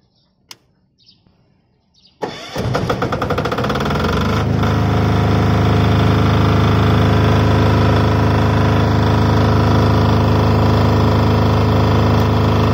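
IF10000T3 silent-type diesel generator with a 192F single-cylinder air-cooled diesel engine being key-started: a click about half a second in, then about two seconds in the electric starter cranks and the engine catches at once, its rapid firing settling within two seconds into steady, loud running.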